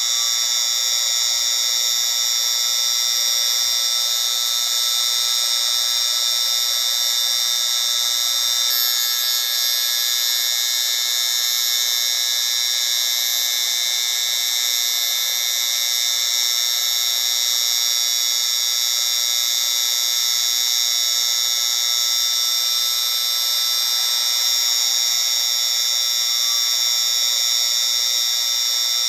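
Tinnitus-masking noise: a steady high-pitched hiss with several steady high tones layered in and almost no low end. The tones shift slightly about nine seconds in.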